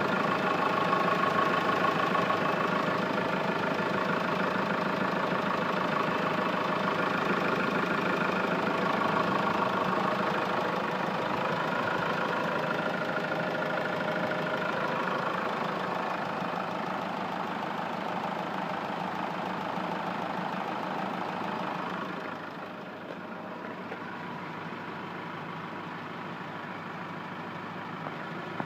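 Hyundai Grand Starex engine running steadily at idle, with the extraneous noise its owner is trying to show. It becomes quieter and duller about three-quarters of the way through.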